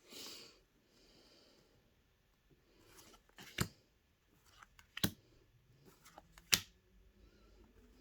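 Pokémon trading cards being handled and flipped through: a short rustle of card sliding on card at the start, then three sharp clicks of cards snapping down about a second and a half apart.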